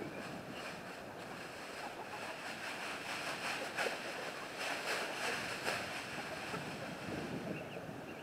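Large plastic bag rustling and crinkling as it is shaken out, loudest in the middle, over wind noise on the microphone.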